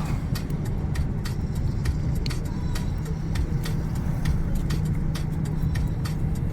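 Steady low rumble of a car on the move, heard from inside the cabin, with many small sharp clicks and rattles.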